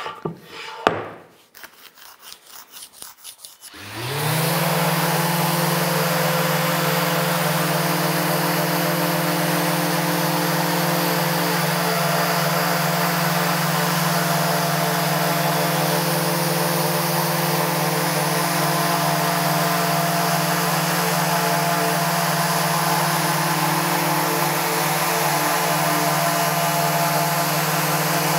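A few pencil strokes scratching across a wooden board. Then, about four seconds in, electric random orbital sanders spin up and run steadily, sanding the board with 120-grit paper: a steady motor hum of several pitches under the hiss of the abrasive on wood.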